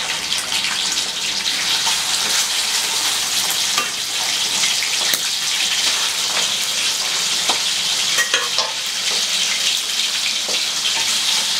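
Duck beaks deep-frying in hot oil in a steel wok: a steady sizzle with scattered sharp pops and clicks as a metal ladle stirs them.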